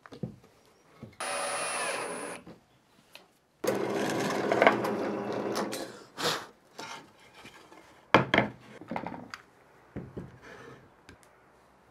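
An AEG 18 V cordless drill runs briefly, then a drill press bores into a pine board for about two seconds. Sharp clicks and knocks follow as a one-handed bar clamp is ratcheted onto a board.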